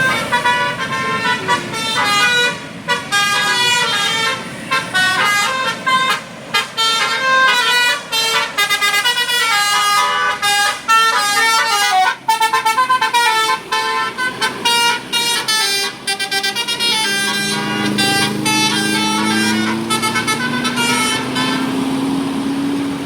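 A bus's 'telolet basuri' multi-note horn playing a quick tune, one short note after another, on and on. In the last few seconds a low engine note rises slowly in pitch under it as the bus pulls away.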